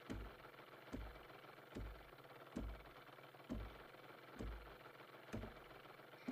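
A slow, even series of low thumps, one a little under every second, each with a short click on top.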